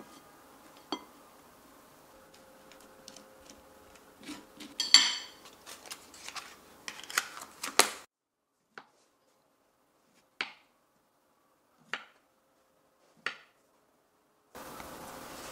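A table knife scraping and clicking as it spreads cream cheese over a slice of crusty bread on a plate. Then four sharp knocks about a second and a half apart as a kitchen knife slices avocado down onto a wooden cutting board, and a steady hiss comes in near the end.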